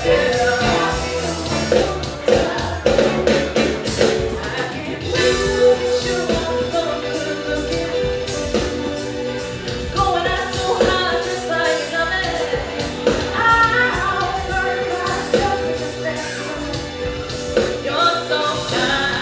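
A song with a singer over a steady beat.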